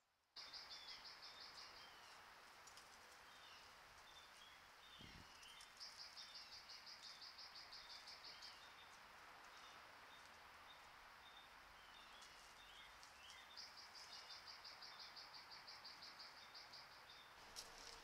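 Faint outdoor ambience: a high, fast trill of rapid pulses repeated three times, each a few seconds long, with scattered short chirps over a steady hiss. A single dull thump about five seconds in.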